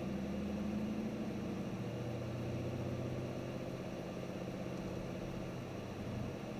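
Car V8 engine running at steady low revs, heard from inside the cabin as a low drone. Its note drops about a second and a half in, then holds.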